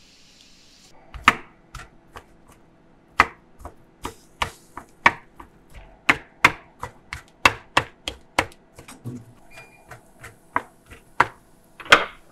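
A knife chopping food on a cutting board: a string of sharp, uneven knocks, about two a second, starting about a second in, with a loud double strike near the end.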